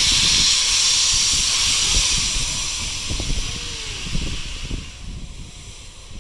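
Steam locomotive venting steam: a loud hiss that fades from about three seconds in and has mostly died away near the end.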